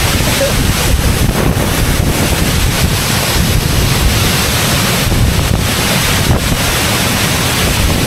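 Powerful waterfall pouring down close by, a steady loud rush of water, overlaid with strong wind gusts buffeting the microphone. The wind comes from the falling water itself.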